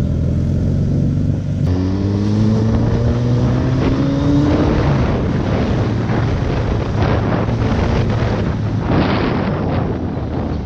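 Suzuki Hayabusa's inline-four engine with stock exhaust running while riding; about two seconds in the engine pitch rises steadily for a couple of seconds as it accelerates, then wind noise on the microphone covers it.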